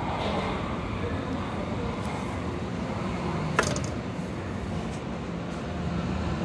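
Berlin U-Bahn large-profile train rolling into the platform and braking to a stop, a steady rumble with one sharp clank about three and a half seconds in.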